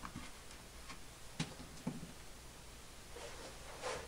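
A few faint clicks and taps of small plastic model parts being handled on a workbench: two sharp clicks about a second and a half and two seconds in, then a short rustle near the end.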